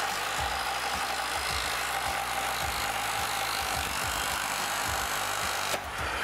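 Belt sander running steadily against wood: a constant hiss and motor whine that drops off shortly before the end.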